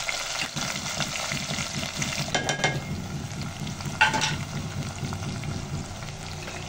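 Garlic, ginger, tomatoes, potato slices and green chillies sizzling in hot oil in a pot. A few sharp clinks sound over the steady sizzle, the loudest about four seconds in.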